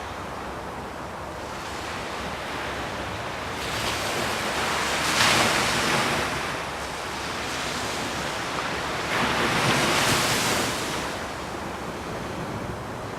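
Ocean surf: waves breaking and washing in, with two louder surges about five and ten seconds in.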